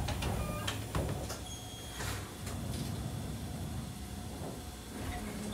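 Sliding passenger door of a Wakayama Electric Railway 'Tama' train car closing, with a few clicks and knocks in the first two seconds. A steady low hum from the stopped train runs underneath.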